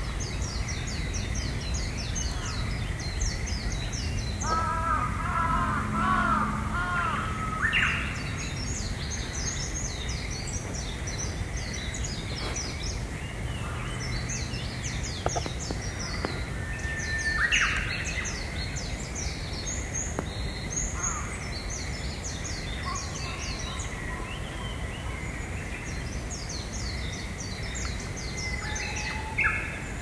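Dawn chorus of small forest birds: rapid high chirps and trills from several birds throughout. A lower call repeats several times about five seconds in, over a steady low background hum of outdoor noise.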